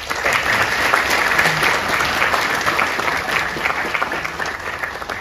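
Audience applauding: many people clapping together, building up in the first second and dying down near the end.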